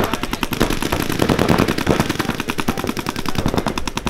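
Paintball markers firing in rapid, continuous strings of shots, roughly a dozen shots a second.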